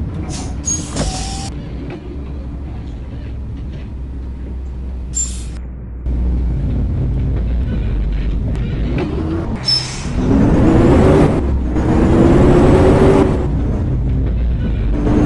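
A motor vehicle engine running with a steady low rumble, its pitch rising in a few upward glides in the second half, as when accelerating.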